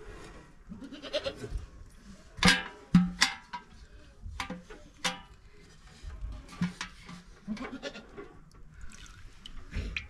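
Aluminium pots, a metal bowl and a milk can clanking as they are handled, with two sharp clanks, the loudest sounds, about two and a half and three seconds in. Livestock bleating runs through the clanks.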